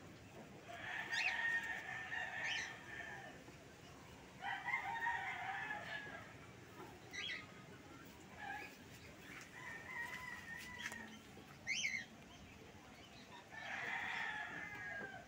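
Rooster crowing repeatedly: three long crows about a second in, at four to five seconds and near the end, with a fainter crow and a few short sharp calls in between.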